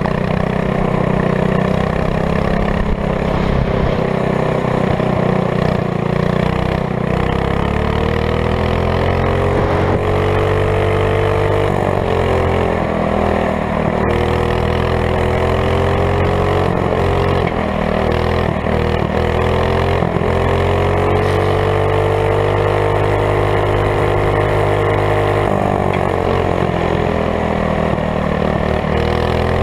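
Honda GX200 single-cylinder four-stroke engine of a go-kart running hard under way, its pitch climbing and dropping several times as the throttle is opened and eased.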